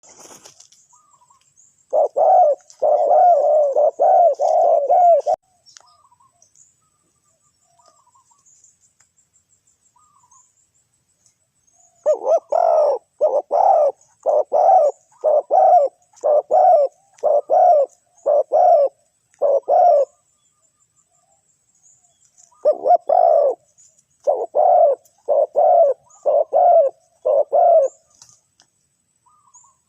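Spotted dove cooing in bouts of short, low, repeated coos: a quick run about two seconds in, then a longer series of a dozen or so notes midway and another series near the end, with pauses between bouts.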